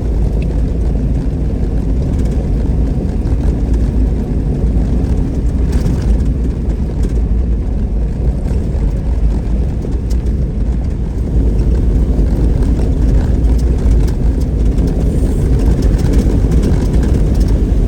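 A Jeep driving fast on a smooth dirt road: a steady rumble of engine and tyres on the gravel, getting a little louder about two-thirds of the way through.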